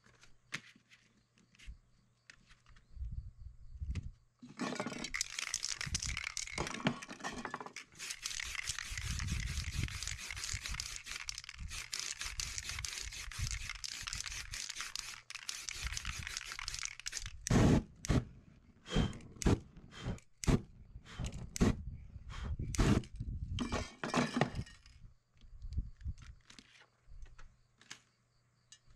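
Aerosol spray-paint can hissing in one long spray of about twelve seconds as black paint goes on over a paper stencil, followed by a string of short, loud, sharp bursts.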